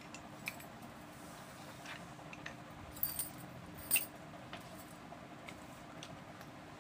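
Light clicks and taps of red slate pencil grooves being handled and set down together on a cloth, a few scattered ones with the sharpest about four seconds in.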